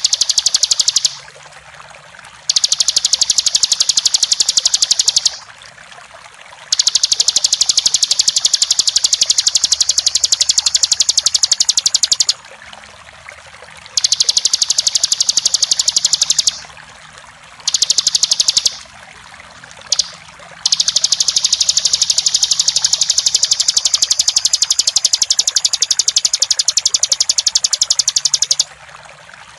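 Bar-winged prinia (ciblek) singing long, rapid, high-pitched trills of several seconds each, broken by short pauses: the continuous 'ngebren' song. A steady sound of flowing water runs underneath.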